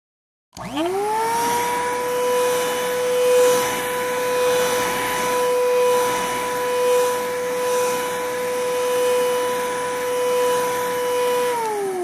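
Vacuum cleaner switched on about half a second in, its motor whine rising quickly and settling into a steady run with a hiss of air. Near the end it is switched off and the whine starts to fall as the motor spins down.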